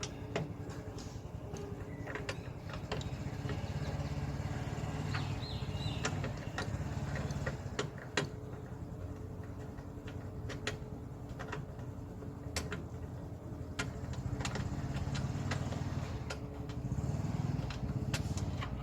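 Scattered sharp clicks and light taps from hands working loose parts inside a car door, over a steady low rumble like passing traffic.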